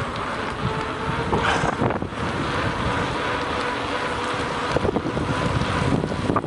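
Wind rushing over the microphone while riding, with a vehicle engine running steadily underneath.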